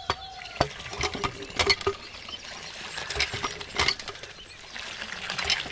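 A miniature hand pump being worked, its stream of water pattering steadily into a small pool, with sharp clicks from the pump mechanism at uneven intervals about once a second.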